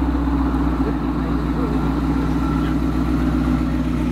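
Hot rod roadster's engine running steadily at low speed as the car rolls slowly past.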